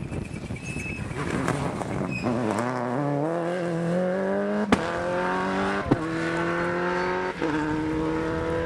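Subaru Impreza rally car's turbocharged flat-four engine dipping off the throttle, then accelerating hard away through the gears. The pitch climbs in each gear, with a sharp crack at each of three upshifts.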